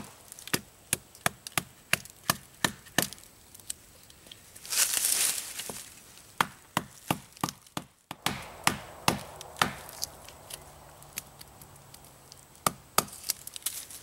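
Dead-stick club knocking on the back of a folding pocket knife's blade, batoning it into a standing tree trunk to cut a felling wedge: sharp wooden knocks, about three a second. About five seconds in there is a second-long burst of noise, and near the middle the knocking breaks off briefly before resuming.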